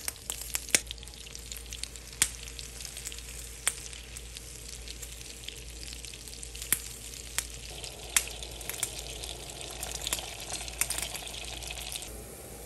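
Butter melting and sizzling in a hot pan: a steady frying hiss with frequent sharp pops and crackles. The sound changes slightly near the end.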